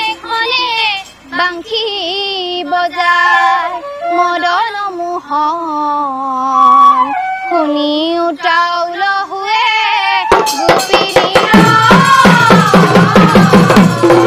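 Girls' chorus singing an Assamese dihanam devotional song in unison, a slow, gliding melody with no accompaniment. About ten seconds in, drums and percussion come in with a loud, fast rhythm under the voices.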